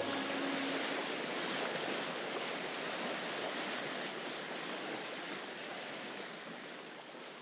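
Steady rushing wash of water and waves, slowly fading out.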